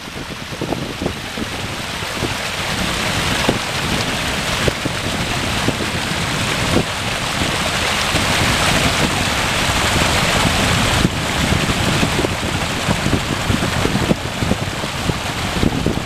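Small waterfall splashing over mossy sandstone rocks into a shallow stream: a steady rush of falling water that grows gradually louder. Wind buffets the microphone with an uneven low rumble underneath.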